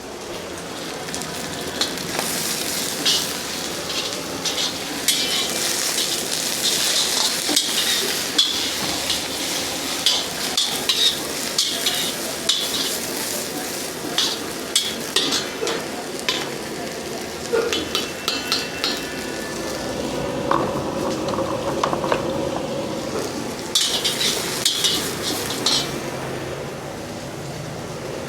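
Food stir-frying and sizzling in a hot wok, with a metal ladle scraping and clanking against the pan in quick runs. The clanking eases off for a while around the middle and picks up again near the end.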